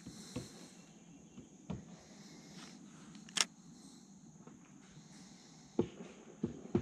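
Faint quiet background broken by a few short, light clicks and knocks from fishing gear being handled in a kayak as the rod is worked. The sharpest click comes about three and a half seconds in, with a cluster of knocks near the end.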